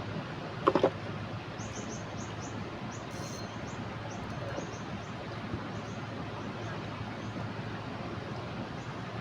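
Steady rush of fast-flowing flood water. Three sharp knocks come in quick succession just under a second in, and a run of short high chirps repeats at a few per second through the middle.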